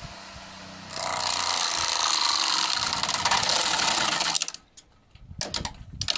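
Bench grinder spinning a homemade saw disc of throwing knives. About a second in, the knife blades bite into a wooden board with a loud, very rapid chatter, shredding the wood for about three and a half seconds before it cuts off abruptly. A few separate knocks follow near the end.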